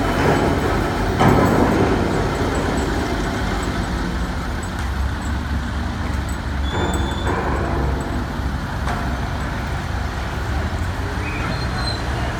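Heavy construction machinery running with a steady low diesel rumble as a crane lifts a steel pile pipe, with a few knocks about a second in and again about halfway through.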